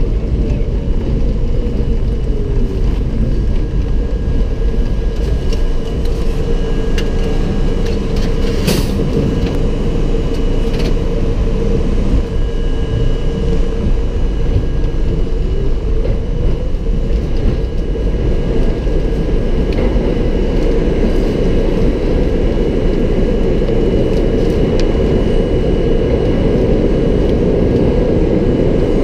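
R32 subway train running along the track: a steady, loud rumble of wheels on rail with a low hum, a short falling tone near the start, and a sharp click about nine seconds in.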